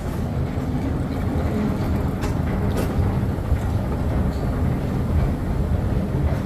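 Long escalator running, a steady low rumble heard from on the moving steps, with a couple of light clicks a little after two seconds in.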